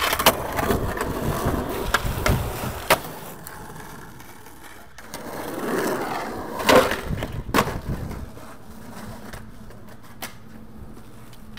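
Skateboard wheels rolling on pavement, with sharp wooden clacks of the board hitting the ground: once near the start, once about three seconds in, and twice around seven seconds in. The rolling swells again around six seconds, then settles into a quieter steady rumble.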